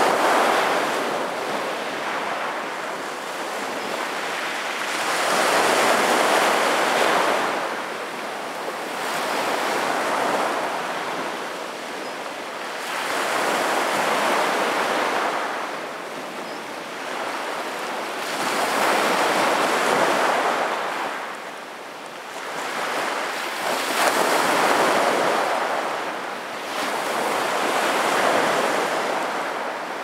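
Small sea waves breaking on a pebble beach, the surf swelling and fading in a slow rhythm of one wash every four to six seconds.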